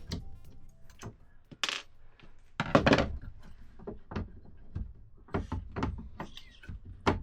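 Sharp clicks and knocks of a tight-fitting part being pushed and pried in its opening in a control panel, with a short scrape and a louder metallic rattle about three seconds in.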